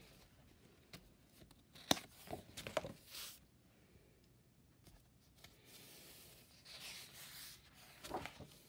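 Paper pages of a spiral-bound sketchbook being turned by hand: a cluster of sharp crinkling clicks about two seconds in, a softer rustle around six to seven seconds, and another crinkle near the end.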